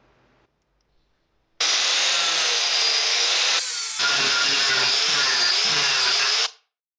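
Angle grinder fitted with a spiked carbide wood-carving disc, running and grinding into a block of wood; it starts about a second and a half in, breaks briefly near the middle, and cuts off sharply near the end, its tone wavering as the disc bites. Faint clicks of the disc being handled come before it.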